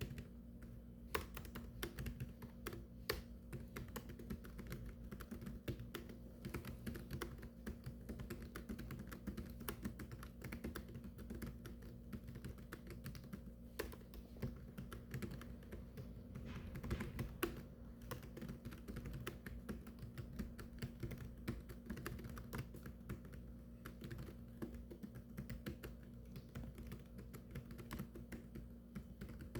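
Fast, continuous typing on a keyboard: a dense patter of keystrokes with the occasional harder stroke.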